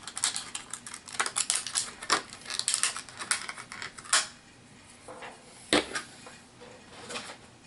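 Plastic HeroClix miniature figures and their packaging being handled and set down: quick small clicks and clatter for about four seconds, then a couple of sharper knocks and a few faint clicks.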